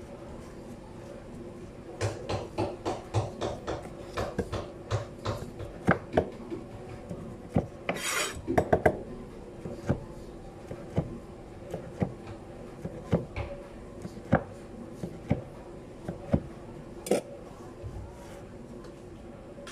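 Kitchen knife cutting through sushi rolls and knocking on the cutting board: a quick run of knocks, about four a second, then single knocks about a second apart, with a brief scraping rustle about eight seconds in.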